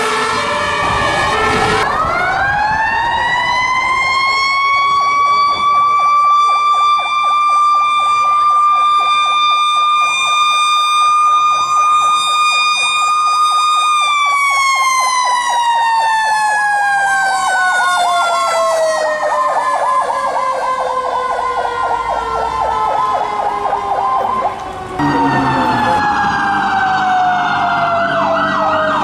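Federal Q mechanical siren on a fire truck winding up slowly to a steady high wail, then coasting down in pitch through the second half. A faster warbling siren sounds under it in the second half, with horn blasts at the very start and again about 25 seconds in.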